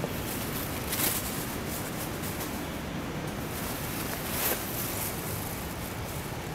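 Steady rushing outdoor background noise, with two brief rustles, one about a second in and one about four and a half seconds in.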